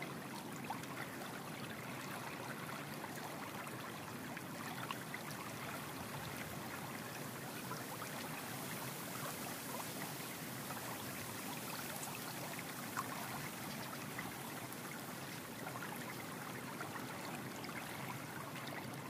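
Steady, even rushing noise like running water, with a few faint clicks.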